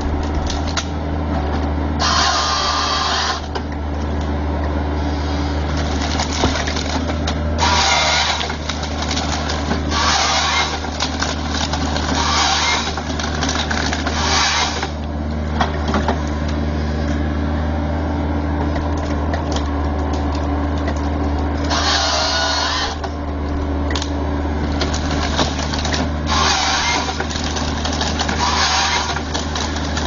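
Tracked excavator fitted with a tree-harvester head working: its engine and hydraulics run with a steady low hum, broken by repeated harsh bursts of one to two seconds each as the head cuts and processes the tree stems.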